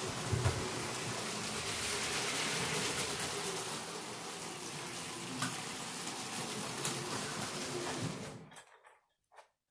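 LEGO train's electric motor running with the wheels rattling along the plastic track, a steady whirring noise that cuts off abruptly near the end.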